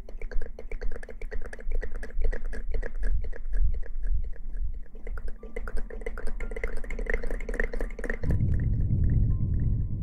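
Close-miked ASMR mouth sounds: a fast, dense run of wet mouth clicks and smacks right at the microphones. About eight seconds in they give way to a low rumbling noise.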